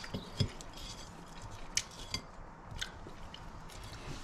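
A handful of light clinks and taps of plates and food being handled on a countertop, four or so short sharp ticks spread over a few seconds.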